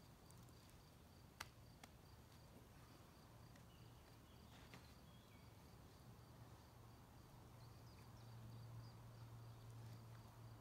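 Near silence: a faint steady low hum, with a single faint click about a second and a half in.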